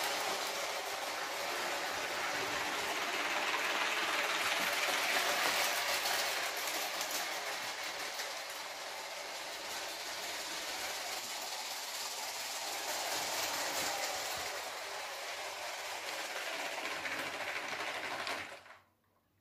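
Motorised clip-brick model diesel railcar, three cars with the drive in the middle car, running over plastic toy track: a steady rattling whir of the motor and the wheels on the plastic rails, swelling a little twice as the train passes, then cutting off suddenly near the end.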